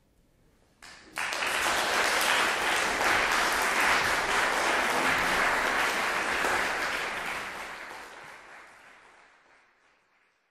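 Audience applauding, starting suddenly about a second in, holding steady, then fading away over the last few seconds.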